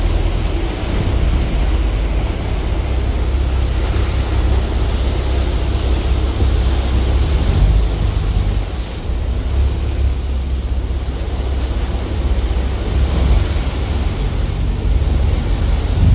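Wind rumbling on the microphone over a steady rush of water, heard from the open deck of a moving ferry.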